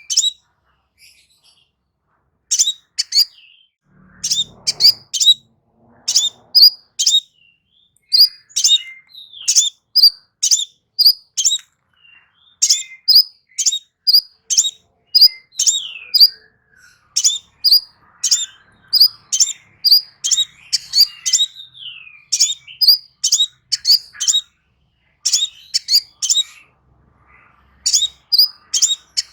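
A small songbird giving sharp, very high chirps in quick runs of three to six, with short pauses between runs, the kind of song played to prompt a caged sunbird to sing.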